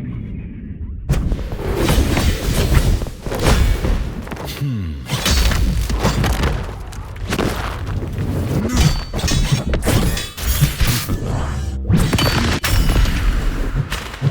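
Designed action sound effects: a dense run of booms, crashes and shattering impacts, with a falling pitched whine about five seconds in.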